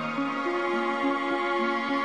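Background music: a melody of held notes over a slowly shifting lower line.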